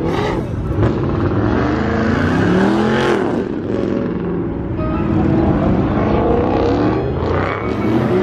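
Car engine revving repeatedly over a continuous rumble of running engines, its pitch rising and falling several times.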